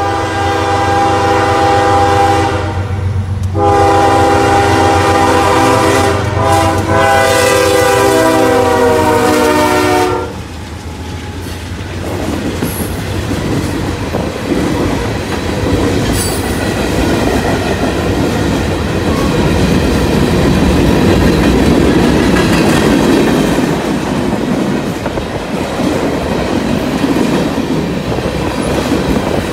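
A CSX freight train's diesel locomotive horn sounds in two long blasts, the second held about six seconds, as the train nears a grade crossing. After it, freight cars roll past with a steady rumble and the clickety-clack of wheels over the rails.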